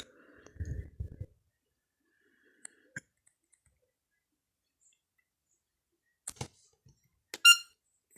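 Scattered clicks and a few low thumps from a Nokia E5-00 being handled and its keys pressed, with one short, loud electronic beep near the end.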